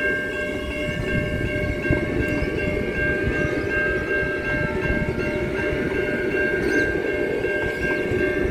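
Adelaide Metro 4000 class electric multiple unit running away along the platform: a steady whine of several high tones from its electric drive over the rumble of the wheels on the rails.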